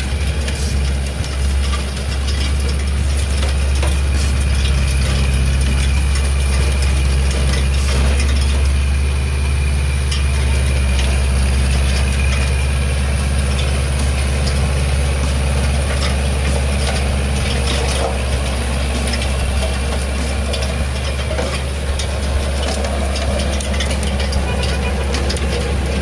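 Kubota L5018 diesel tractor engine running steadily, a deep, even drone.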